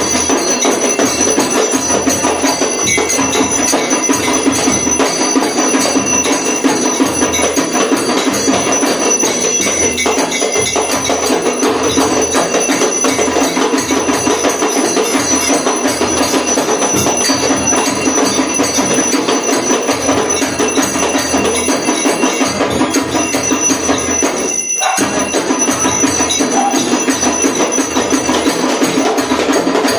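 Puja hand bell rung continuously through an aarti, with rhythmic hand-clapping. The sound cuts out briefly about 25 seconds in.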